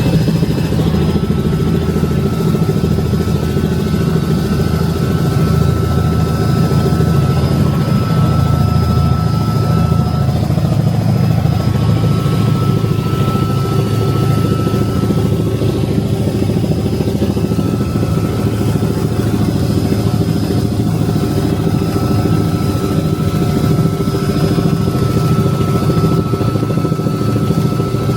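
Tour helicopter's engine and rotor running steadily in flight: a continuous, even, low drone.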